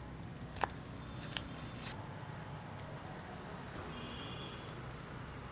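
A sharp click, then two short papery rips as the small cardboard box of an S&B wasabi tube is opened by hand, over a faint steady hum of street traffic.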